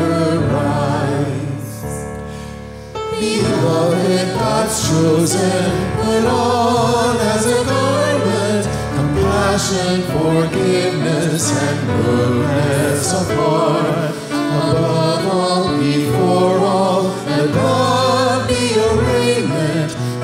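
A hymn sung by voices over a sustained instrumental accompaniment. The music thins and dips briefly about two seconds in, then the singing carries on.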